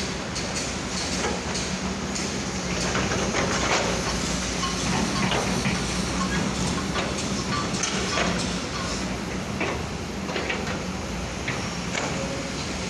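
Construction machinery running: a steady low engine hum with scattered metallic clanks and knocks.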